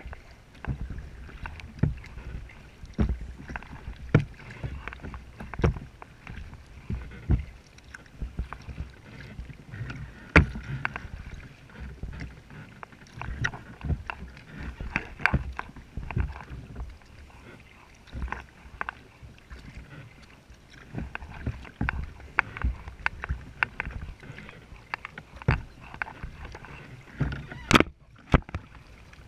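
Kayak being paddled: the paddle dips and splashes and water slaps against the hull. This comes through the deck as frequent, irregular sharp knocks over a steady low rumble.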